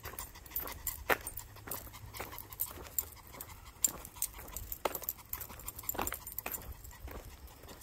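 Footsteps of a person and two small leashed dogs on an asphalt path: light, irregular clicks and scuffs, several a second, over a steady low rumble.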